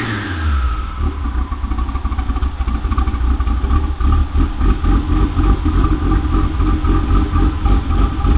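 Turbocharged VW VR6 engine in a Golf Cabrio, running through a DTM exhaust, drops back from a rev in the first half second and then idles with a deep, pulsing exhaust note.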